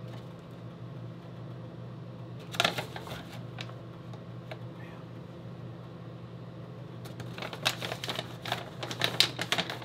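Crinkling and rustling of a plastic protein-powder pouch as a hand rummages inside it, in a short bout about two and a half seconds in and a longer one from about seven seconds in, over a steady low hum.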